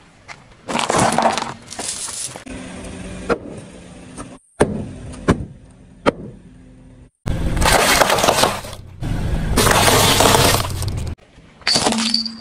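A car tyre rolling over and crushing brittle plastic objects, such as a strand of plastic bead necklace and plastic toys, heard as several separate bursts of crunching and crackling with sharp snaps between them.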